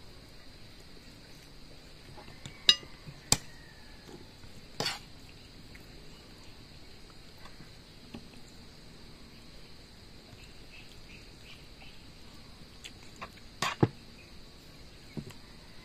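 Scattered sharp clinks and knocks of dishes and tableware on a wooden table while someone eats by hand: three a few seconds in, then a quick double knock and a last lighter one near the end.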